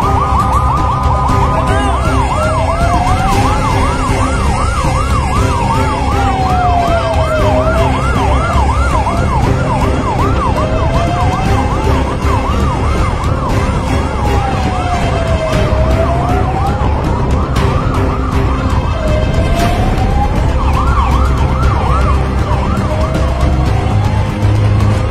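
Fire truck sirens: a slow wail that rises and falls every few seconds, overlapped for several seconds at a time by a fast yelp, over a low rumble of engine and traffic.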